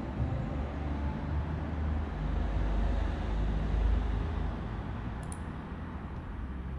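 CNC router machining a wall panel: a steady low rumble with a hiss over it, swelling slightly midway, and a faint click a little after five seconds.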